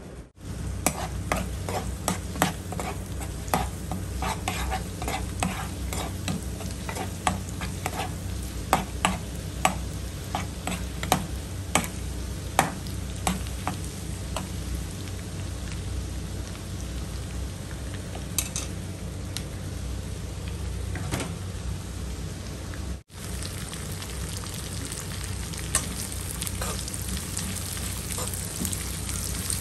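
Chopped garlic and then sliced red onion sizzling in hot oil in a nonstick wok, the sautéed garlic-onion base of a ginisa dish. A metal spoon stirs them, clicking and scraping against the pan many times, most often in the first half.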